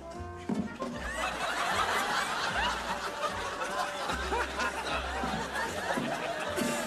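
Laughter from many people at once, swelling about a second in and running on in overlapping chuckles, over background music with a stepping bass line.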